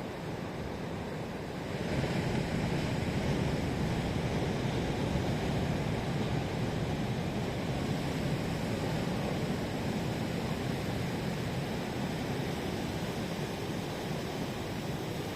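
Sea surf: a wave breaks about two seconds in, and its wash swells and then slowly fades.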